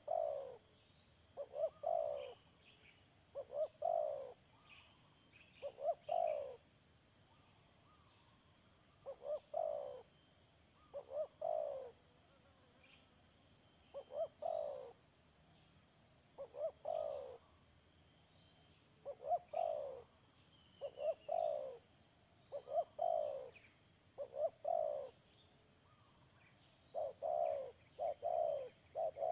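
Spotted dove (tekukur) cooing over and over: phrases of two or three short notes, each falling in pitch, repeated every couple of seconds. Faint chirps of small birds come in between.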